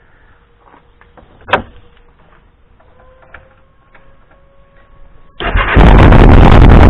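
A sharp click about a second and a half in, then about five seconds in the 2002 Kawasaki GPZ 500's parallel-twin engine starts and runs very loud, freshly restarted after a battery change.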